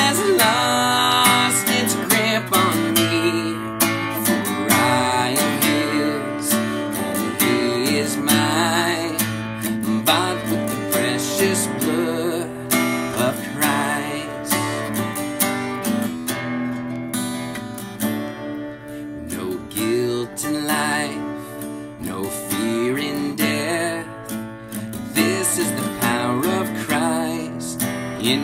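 A man singing a worship song while strumming chords on an acoustic guitar.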